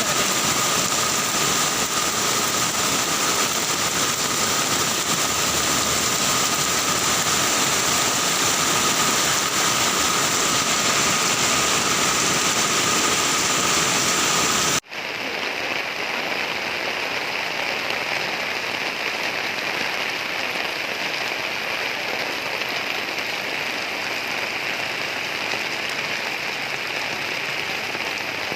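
Rain falling steadily as an even hiss. About halfway through it cuts abruptly to a second, slightly quieter stretch of rain with a different tone colour. A thin steady high tone runs under the first half.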